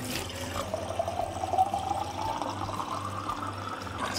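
Water running from a kitchen faucet into a drinking glass, the filling note rising steadily in pitch as the glass fills.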